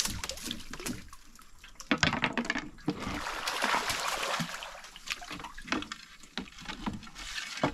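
River water splashing and churning inside a net fish trap as a trapped belida thrashes and the net is lifted, with irregular splashes, loudest around the middle.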